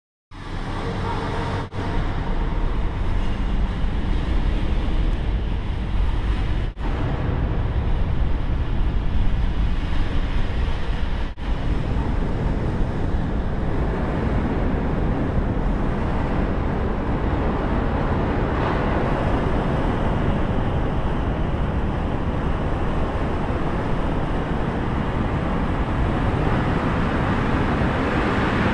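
Jump-plane cabin noise: a steady, heavy engine and propeller drone, with three brief dropouts in the first dozen seconds. From about halfway it gives way to a broader steady rush of wind at the open door and in freefall.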